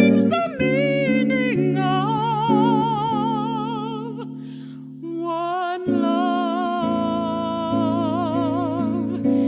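Jazz ballad music: a high melody line held in long notes with a steady vibrato over sustained chords below, easing off briefly about halfway through before a new chord comes in.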